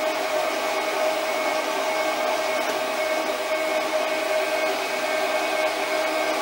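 Sieg SC4 benchtop lathe running under power, with its cross-slide power feed engaged: a steady motor and gear whine at an even pitch.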